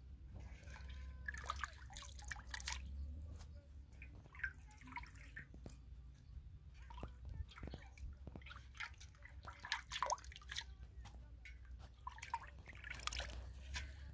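Hands swishing leafy greens in an aluminium basin of water and lifting wet handfuls out, with irregular splashing and water dripping back into the basin.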